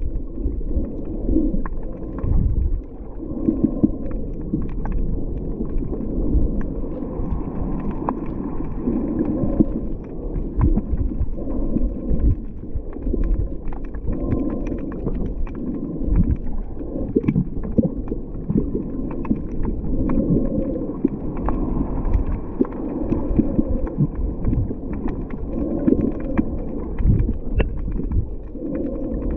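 Muffled underwater slosh and surge of shallow water, heard through a submerged camera's housing, swelling and easing every second or two, with scattered small knocks.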